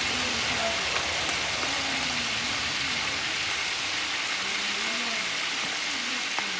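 Spiced chicken pieces deep-frying in hot oil in a wok: a steady, dense sizzle with a few small pops.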